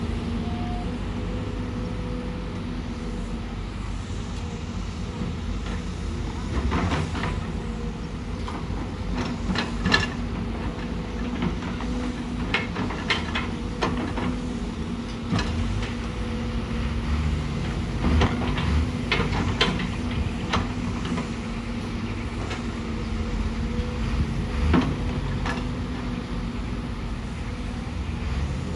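Hydraulic excavator's diesel engine running at a steady hum, with scattered sharp knocks and clanks from the working machine, most of them bunched in the middle of the stretch.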